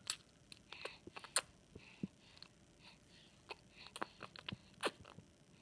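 Baby sucking on her thumb and fingers: a dozen or so irregular, sharp wet sucking clicks and smacks from her mouth.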